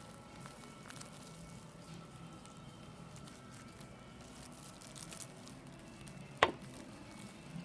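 Faint crackling rustle of a thin plastic glove on a hand handling a small puppy, with one sharp click about six and a half seconds in.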